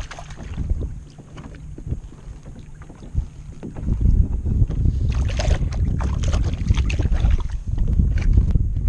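Wind buffeting the microphone, gusting much louder about four seconds in, with scattered small knocks and splashes against a drifting kayak.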